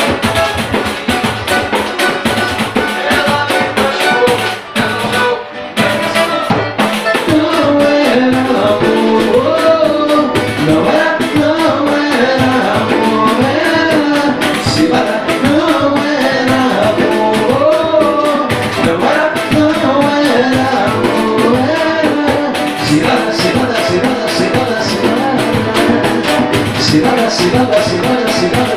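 Samba-pagode band playing: busy steady percussion under a melody line, with a short drop in level about five seconds in.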